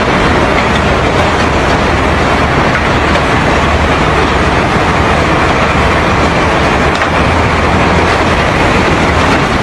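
Heavy truck running as it crosses a suspension bridge, with a steady loud rush of river rapids and a low rumble underneath.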